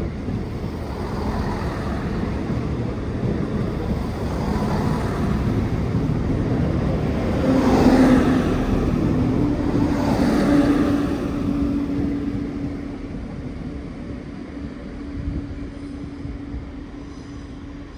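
Two coupled Chiltern Railways Class 168 diesel multiple units running through the station, their engines and wheels growing louder to a peak about halfway through, then fading as the train moves away.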